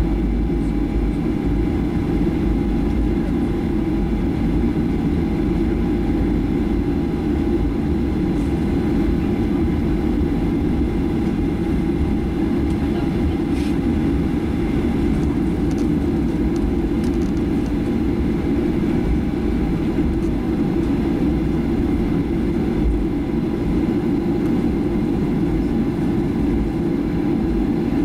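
Steady cabin noise of a Boeing 737-800 taxiing: a low rumble from its CFM56 engines at taxi power and the rolling of the airframe, with a faint steady whine above it.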